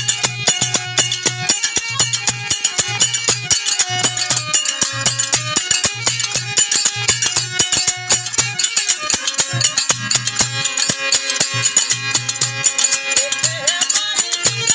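Harmonium playing held notes over fast, dense rattling percussion and a steady low drum beat: traditional live folk music.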